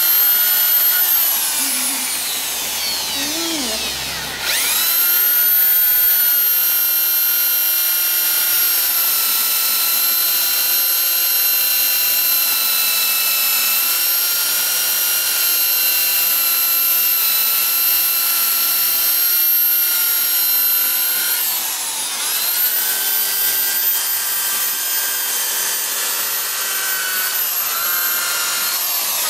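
Handheld power tool polishing a motorcycle engine, its motor whining high and steady. It slows with a falling pitch early on, then spins back up about four seconds in. Its pitch dips briefly once more about three quarters of the way through.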